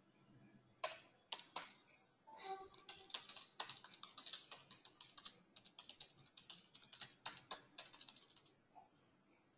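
Faint computer keyboard typing: quick, irregular runs of keystrokes that start about a second in and stop shortly before the end.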